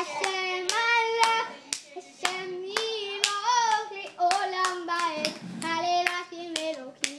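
A toddler's hands clapping, about two claps a second, while a voice sings a tune.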